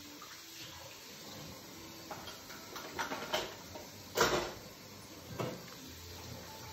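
A few scattered knocks and clatters, like household handling noises, the loudest about four seconds in.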